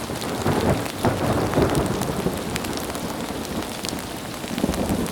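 Sound-design rain-and-thunder ambience from the Krotos Studio Genesis pack's wind and rain preset: steady rain with scattered drop ticks, and a thunder rumble, triggered from a keyboard key, that rolls in about half a second in, slowly fades, and swells again briefly near the end.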